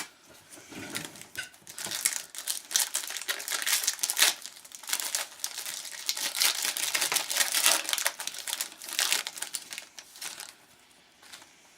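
Plastic trading-card pack wrappers being torn open and crinkled by hand: a long run of dense, crackly rustling that dies away near the end.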